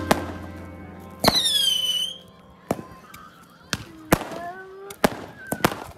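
Firework rockets going off: a sharp crack with a high whistle falling in pitch for about a second, then four more sharp bangs spaced out over the following seconds.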